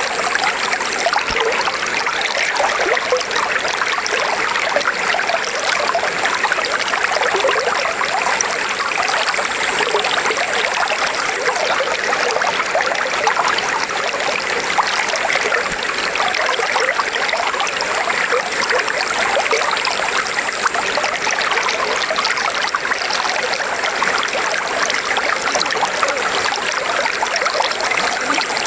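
River water flowing steadily over rocks, a continuous babbling and trickling rush.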